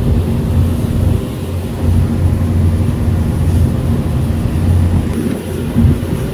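Ferry engine running: a loud, steady low hum that swells and eases every second or two.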